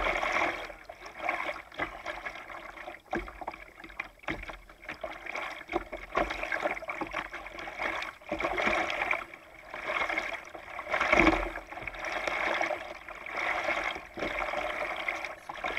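Kayak paddles dipping and pulling through calm river water, a splashy swish about every second with drips and water lapping against the hull, heard from a camera on the kayak's bow. Now and then a short sharp knock.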